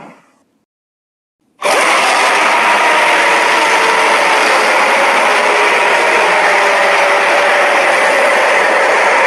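Kaiju creature sound effect: the previous sound fades out, and after about a second of silence a loud, harsh, rasping roar starts suddenly and holds at an even level, with faint wavering tones under the noise.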